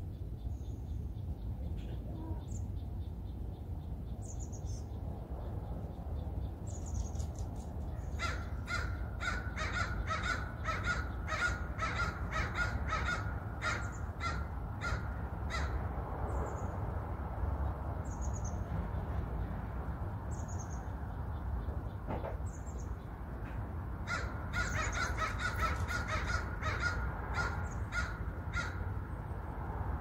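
American crow cawing in two long runs of short repeated caws, about two a second, with a pause between the runs. Faint short high notes from small birds come in between.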